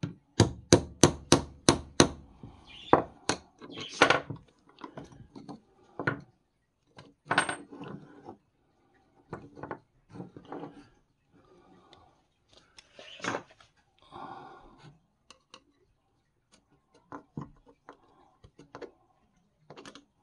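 Metal hand tools knocking, tapping and scraping against the wooden body of an antique paint scraper on a workbench while a pin is worked out of it. It opens with a quick run of about eight sharp taps, about four a second, followed by scattered knocks and clatter.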